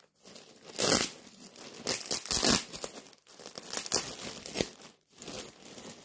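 Clear plastic packaging bag crinkling and tearing as it is pulled open by hand, in several loud bursts with brief pauses between.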